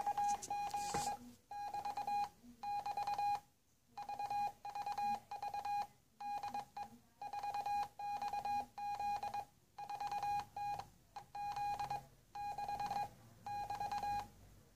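Shortwave Morse code from the 4XZ Israeli military number station, received in CW mode at 4331 kHz: a single steady beep keyed on and off in dots and dashes at about 22 words per minute. It repeats the station's idling call 'VVV DE 4XZ' over and over while it waits to send its five-figure groups.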